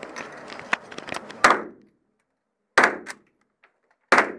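Three rifle shots, evenly spaced about a second and a half apart, each ringing out briefly. Light clicking comes before the first shot.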